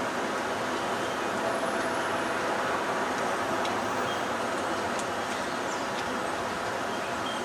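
Steady city traffic noise, an even wash of road sound with no distinct events.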